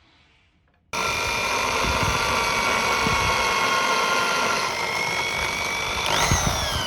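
An electric drill is switched on about a second in and runs steadily with a whine while drilling into a pocket knife's metal pin. Near the end it is let off and spins down, its whine falling in pitch.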